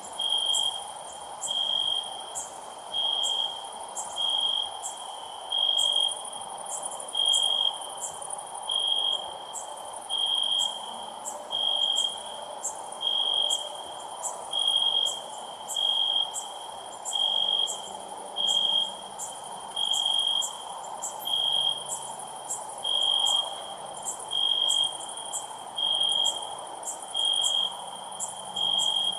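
Cricket chirping: a single high-pitched chirp repeated steadily about every second and a half, over fainter, higher rapid ticking and a steady background hiss.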